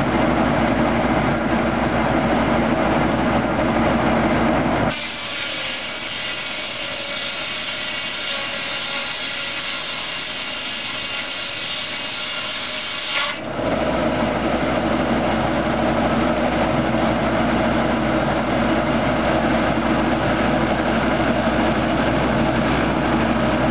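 A tractor-PTO-driven Foley Belsaw circular sawmill running, with a steady low machine drone. For several seconds in the middle the drone drops away and a higher, hissy sawing sound takes over, then the steady drone comes back.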